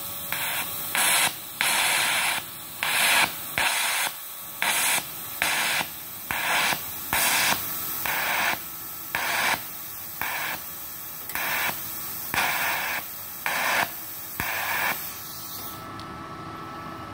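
TIG welding arc from a MultiPro TIG 200A-SA inverter welder at about 103 amps, hissing in regular pulses that swell and drop about every two-thirds of a second. The arc stops about 15 seconds in, leaving a faint hum.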